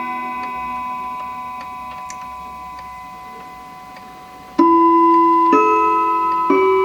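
Chime of a German three-train Franz Hermle & Sons clock movement: one chime phrase rings out and fades while the ticking of the movement shows through, then a new phrase begins about four and a half seconds in with single struck notes roughly a second apart, each ringing on.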